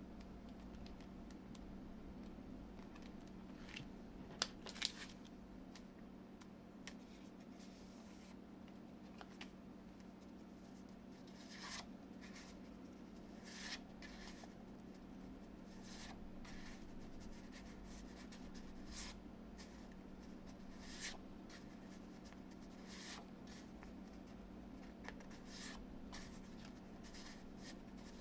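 Paper and packaging being handled: scattered short rustles and clicks, with a cluster of sharp clicks about four to five seconds in, over a steady low hum.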